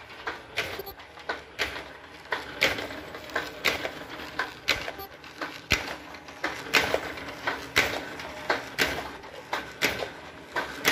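Face mask blank making machine running, with a regular clacking a little faster than once a second over a low mechanical hum as it feeds nonwoven fabric through its rollers and cuts out mask blanks.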